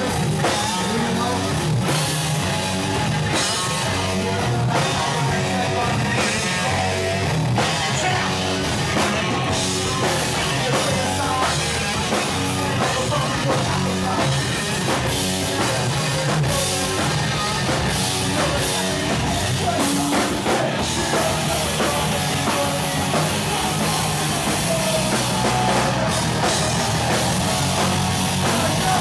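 Live punk rock band playing: electric guitars, bass guitar and a drum kit driving a steady beat.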